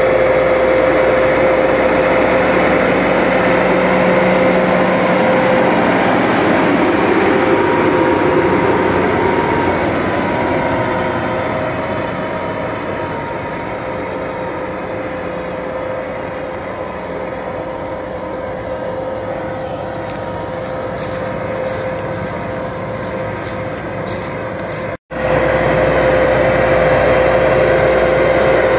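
New Holland TD5.110 tractor's diesel engine running steadily under load while pulling a mounted plough through the soil, with a constant engine hum. It grows somewhat quieter midway, cuts out for an instant about four-fifths of the way through, and comes back at full level.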